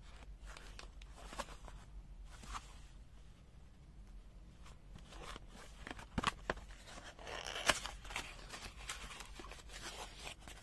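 Multimeter's packaging being opened and handled: scattered clicks and short rustling and tearing sounds, busiest about six to eight seconds in.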